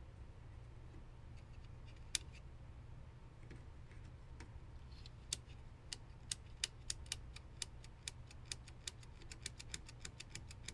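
Sharp clicks from plastic Snap Circuits parts under hands working the board: a few scattered at first, then coming irregularly, several a second, from about halfway. A faint steady low hum lies under them.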